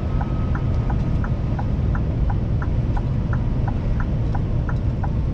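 Scania V8 lorry on the move, heard from inside the cab: a steady low engine and road drone, with a light regular ticking about three times a second.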